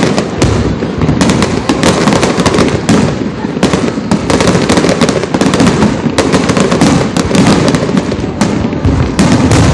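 Fireworks display: a rapid, continuous barrage of bursting shells and crackling, many bangs a second with a rumbling echo beneath.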